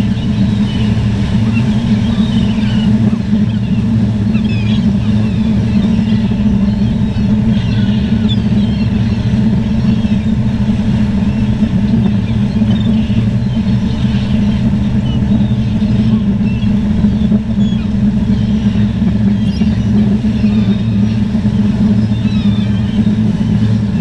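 A steady, unchanging engine drone, with many short seabird calls scattered over it.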